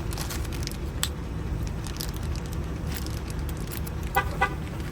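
Vehicle engine idling steadily, with small scattered clicks of lock parts being handled as a trunk lock cylinder is reassembled. Two short high chirps sound close together near the end.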